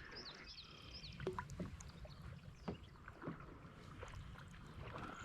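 Quiet sounds of a small boat on a lake: faint scattered knocks and light water and handling noises. A bird chirps in quick short notes during the first second.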